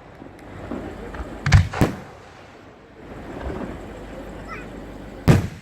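Fireworks going off: two sharp bangs close together about a second and a half in, and a third near the end.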